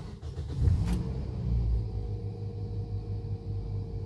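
Toyota Yaris engine started from inside the cabin: the starter cranks it for under a second, it catches, and it settles into a steady idle.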